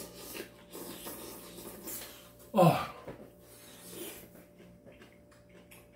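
A person slurping ramen noodles. About two and a half seconds in comes a short, loud vocal sound that drops steeply in pitch, followed by chewing with soft mouth clicks.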